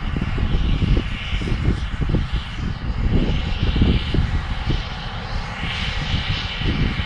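Massey Ferguson IDEAL 7PL combine harvester running while cutting wheat, a continuous engine and machinery sound with a rushing of air that swells and fades. Its Air Sense cooling fan is running in reverse, blowing dust out of the radiators and grilles. An uneven low rumble runs under it.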